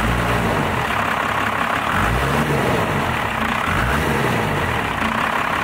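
First-gen Dodge Cummins 5.9-litre inline-six turbo diesel running with the hood open, its revs rising and falling about three times. The engine is freshly fitted with an aftermarket fuel pin and 3200 rpm governor spring.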